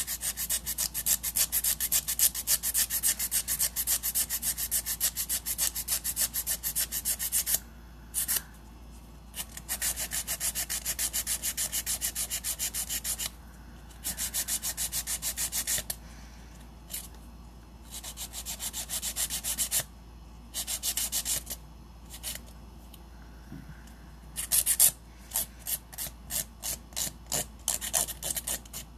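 Hand nail file rasping on an acrylic nail in quick back-and-forth strokes, shaping the edges of a short almond nail. The filing comes in runs broken by short pauses.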